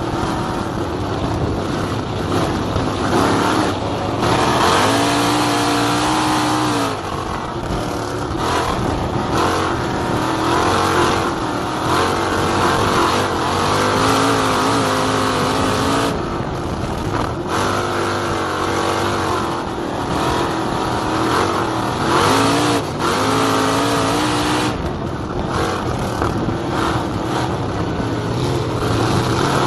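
Open-wheel dirt-track race car's engine heard from on board at racing speed. It revs up along the straights and drops back as the driver lifts for the turns, over and over as it laps.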